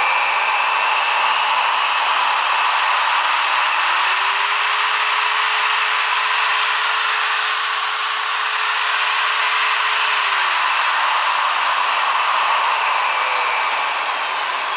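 Milwaukee 4204-1 magnetic drill press's electric motor running in forward under the variable speed control. Its whine rises in pitch over the first four seconds as the speed is turned up, holds steady at top speed for about five seconds, then falls again.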